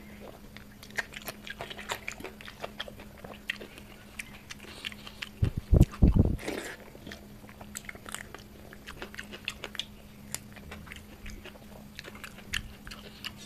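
Close-miked eating by hand: chewing with many small wet clicks, fingers working rice on a brass plate, and a cluster of heavy low thumps about halfway through. A faint steady low hum runs underneath.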